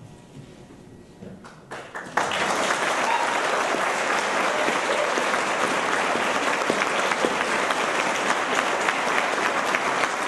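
Applause: a few scattered claps about a second and a half in, then steady clapping from a group that breaks out a moment later and keeps going.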